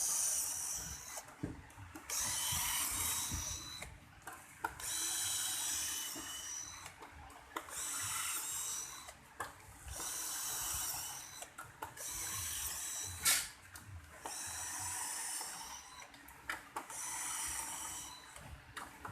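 Handheld power tool, likely a drill, whining in about seven short runs of one to two seconds each, with sharp metallic clicks in the gaps between runs.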